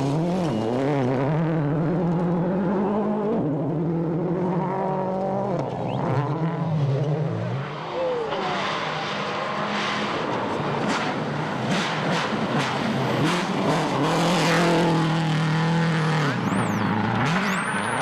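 Rally car engine revving hard, its pitch climbing and dropping back again and again through gear changes. From about eight seconds in, a rough hiss of tyre and surface noise builds under it, with sharp cracks scattered over it.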